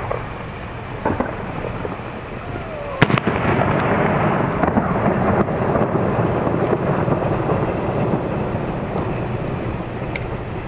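Aerial fireworks shells bursting: a few small pops, then one sharp loud report about three seconds in, followed by a long dense crackle from the bursting stars.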